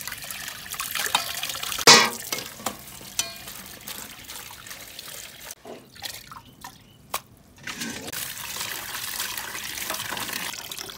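Water running and splashing into a stainless steel bowl as soaked hazel mushrooms are drained and rinsed by hand under a tap. There is a sharp knock about two seconds in. The water stops for a couple of seconds midway, with a few light clicks, then runs again.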